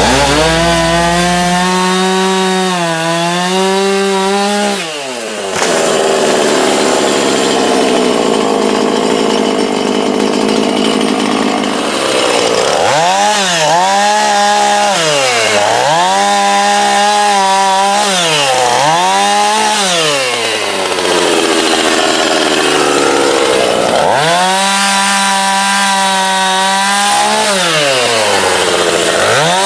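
Husqvarna two-stroke chainsaw cutting a large tree branch. It is revved up and let fall back several times, and has two stretches of rougher, steadier running under load in the wood.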